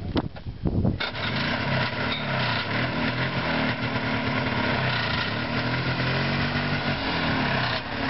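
Yamaha Bravo snowmobile's two-stroke engine catching about a second in after a few knocks of the starter, then running at a fast idle with its pitch wavering.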